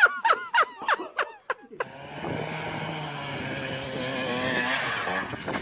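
A person laughing in quick repeated bursts, then a motor scooter's small engine running steadily for about three and a half seconds.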